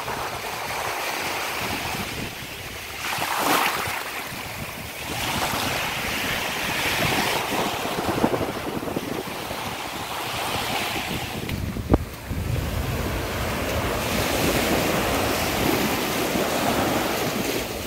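Small sea waves washing in and breaking on a sandy shore, swelling and easing every few seconds, with wind rumbling on the microphone. A single sharp click about twelve seconds in.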